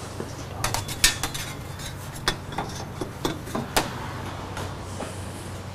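Sharp metallic clinks and clatter of metal objects being handled, about a dozen irregular strikes bunched in the first four seconds, over a steady low hum.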